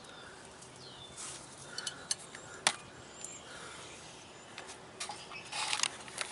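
Pipe wrench working the threaded gland nut loose on a hydraulic cylinder: scattered light metal clicks and scrapes, with one sharper click about two and a half seconds in and a busier spell of scraping near the end.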